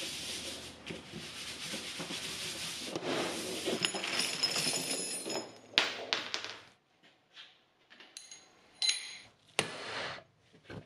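Continuous rubbing and rustling, then loose steel rocker arms and small metal parts clattering out of a plastic bag onto the bench, with light metallic clinks. Near the end come a few sharp, ringing metal taps and one louder knock: a hammer on a seal driver, seating the front crank seal in the timing cover.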